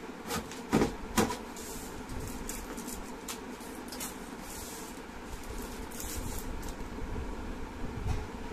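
Hands handling a small glossy printed paperweight block, with a few sharp clicks and taps in the first second or so, then lighter tapping and short rustles. A steady background hum runs underneath.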